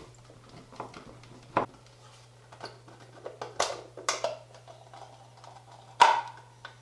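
Scattered clicks and knocks from the casing of a small Bluetooth speaker being handled and taken apart, with the loudest knock about six seconds in. A steady low hum runs underneath.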